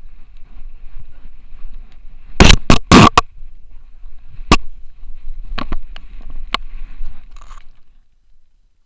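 Handling noise on a harness-mounted action camera carried by a running French bulldog: a low rubbing rumble broken by sharp knocks. The knocks come as a quick cluster of four about two and a half seconds in, then one more and a few scattered ones, and the noise dies away about a second before the end.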